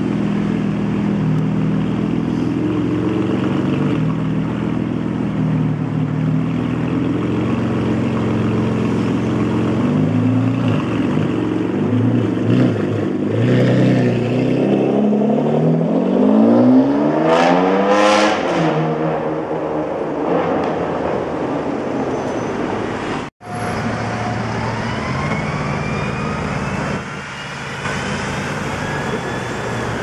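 Ferrari 599's V12 engine running low in traffic, then pulling away with a rise and fall in pitch about two-thirds through. After a sudden cut, another car's engine runs in traffic with a faint rising whine.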